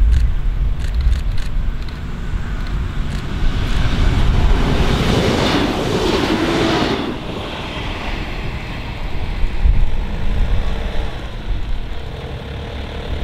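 Diesel railbus passing close by: wheels and engine build up, peak about five to seven seconds in, then drop away sharply as it goes past and recede.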